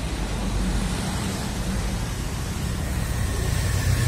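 Road traffic passing: engine hum and tyre noise, building louder near the end as a vehicle approaches.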